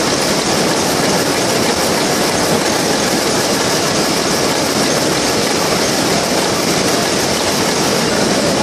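Shuttleless loom weaving terry towel cloth at full speed: a loud, dense, steady mechanical clatter.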